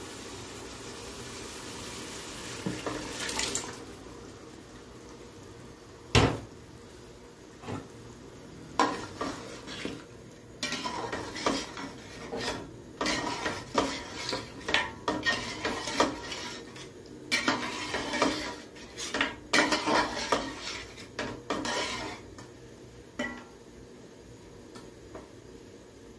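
Metal slotted spatula stirring mutton and dal in an aluminium cooking pot, scraping and clinking against the pot's side and bottom in quick repeated strokes. A single loud metal clank comes about six seconds in, before the stirring starts.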